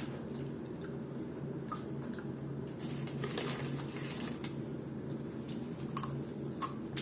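Close-up eating and food-handling noises: soft irregular clicks, crackles and squishes of food being bitten and handled, thickening from about three seconds in, over a steady low hum.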